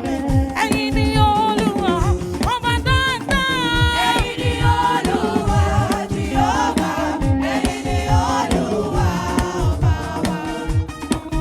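Gospel music: a choir singing with vibrato over a steady beat of bass drum hits.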